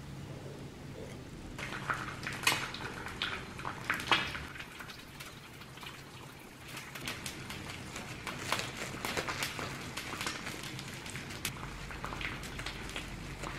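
Plastic cling film crinkling and crackling as it is folded and pressed around a rice-and-nori wrap, in many small irregular crackles from about two seconds in, over a low steady hum.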